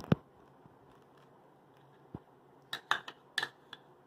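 Light clicks and taps from hand handling over a plastic food container while chocolate chips are sprinkled on. One sharp click comes at the start, then a quick run of light clicks about three seconds in.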